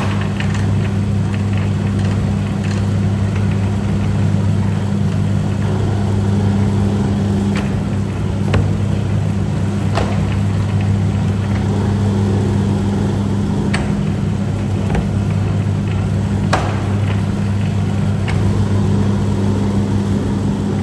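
Electric noodle-cutting machine running with a steady hum, with a few sharp clicks scattered through.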